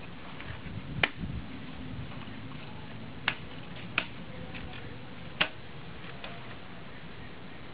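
Folding quadcopter frame being unfolded by hand: sharp clicks as the landing legs and arms lock into place. There are four clear clicks, the loudest about a second in and the others spread over the next four and a half seconds, with a few fainter ticks between them.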